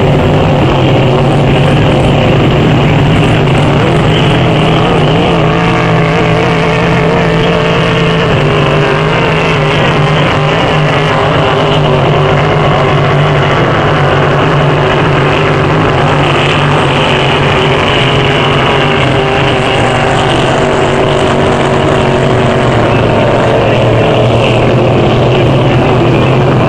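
Racing hydroplane engines running at speed: a loud, continuous engine sound with a slight waver in pitch.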